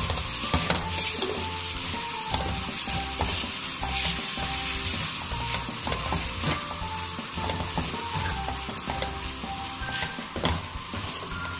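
Spaghetti sizzling and frying in a hot metal pan while a spatula stirs and tosses it. The spatula scrapes and knocks against the pan again and again.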